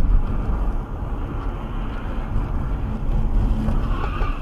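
Car driving along a street at just under 30 mph, with steady road and engine noise heard from inside the cabin through the dashcam.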